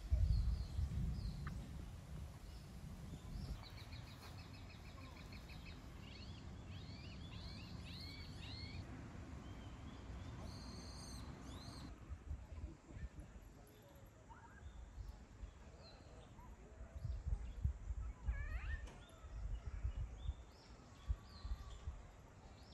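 Outdoor ambience of birds chirping and singing, with gusts of wind rumbling on the microphone, strongest at the very start and again in the last few seconds.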